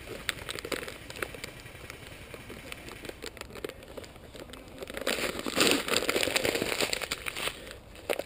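Crackling and rustling of someone moving through dry leaf litter and undergrowth, with scattered sharp snaps of twigs. It grows louder and fuller about five seconds in.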